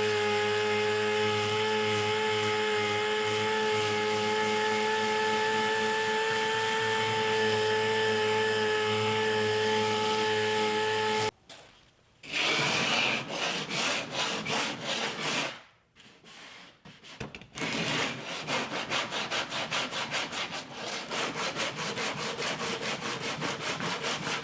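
A power tool on the fiberglass cowl edges runs at a steady, even whine for about eleven seconds, then stops. After a short pause come rapid back-and-forth rubbing strokes on the fiberglass, a few strokes a second.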